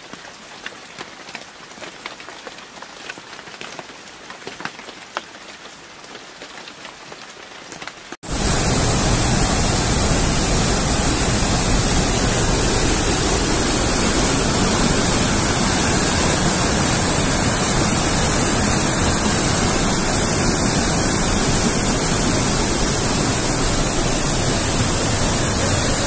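Swollen river water rushing over a weir, a loud, steady roar that starts abruptly about 8 seconds in. Before that, only faint outdoor noise with scattered light clicks.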